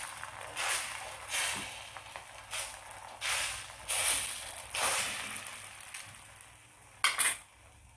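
A steel spoon scraping and spreading egg batter across a hot iron tawa, in short swishing strokes about once a second, over a faint sizzle. Two quick sharp knocks about seven seconds in.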